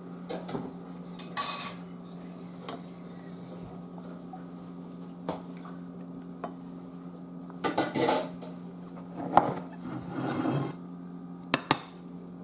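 Cutlery and dishes clinking and scraping several times at irregular moments as food is dished up, over a low steady hum.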